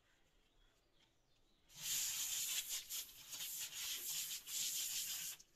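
Water running from a kitchen tap's swivelling multi-mode spray attachment into the sink as a steady hiss, turned on about two seconds in and shut off abruptly near the end.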